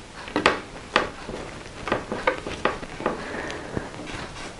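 Hands handling and pressing paper craft pieces and gauze on a tabletop: a string of irregular crisp rustles and small taps, the sharpest about half a second and a second in.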